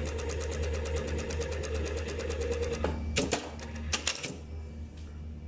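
Brother S-7300A single-needle lockstitch industrial sewing machine stitching a test seam at a steady, rapid, even rhythm, set to 10 stitches per inch. It stops a little under three seconds in, and a few sharp mechanical clacks follow.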